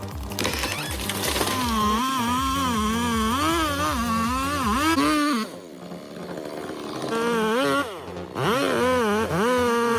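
Two-stroke chainsaw being revved and cutting, its engine speed rising and falling repeatedly as it bogs under load. It drops off about five and a half seconds in, then revs up again and dips once more near the end.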